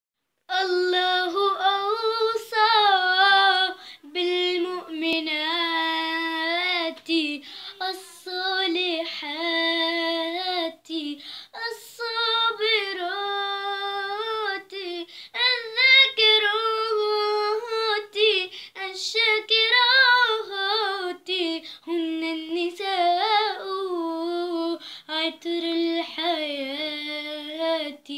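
A young girl singing an Arabic song unaccompanied, one high voice in long, wavering, ornamented phrases with short breaks for breath.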